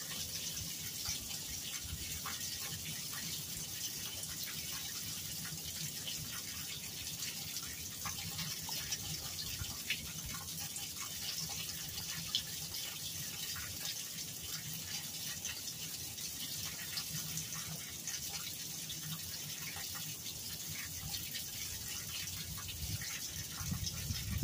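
Rainwater running and dripping into a curbside storm drain: a steady trickle with many scattered drips. A brief low rumble comes in near the end.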